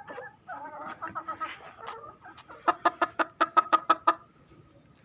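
Chicken clucking: a run of wavering calls, then a quick series of about ten sharp clucks in the middle.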